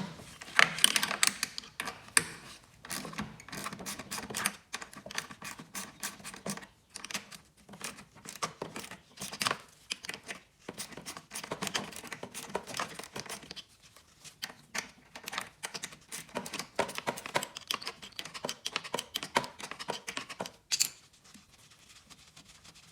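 An 8 mm wrench clicking rapidly as it ratchets, loosening the bolts that hold the air-filter assembly on a Craftsman lawn mower engine. There are dense runs of small metallic clicks with short pauses, then a single sharper click near the end.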